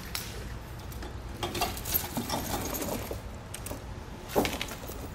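Steel square-link tire chains clinking and rattling as they are draped and pulled around a truck tire by hand, with a louder clank about four seconds in.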